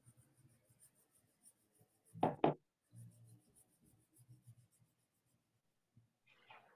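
Small slips of paper rustling and crinkling as one is drawn by hand and unrolled, with two short louder crackles about two seconds in.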